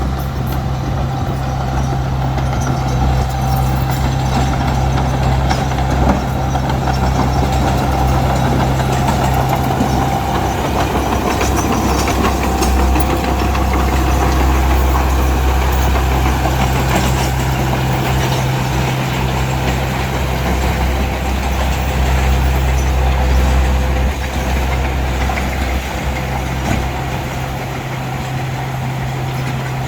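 Diesel engine of heavy road-building machinery running with a steady low hum that dips briefly a couple of times.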